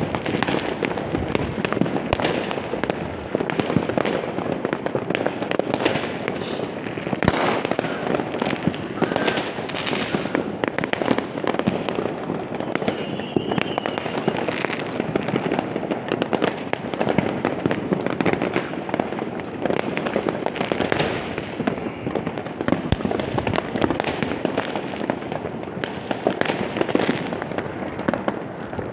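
A dense, unbroken barrage of many firecrackers and fireworks popping and crackling all at once, with no let-up.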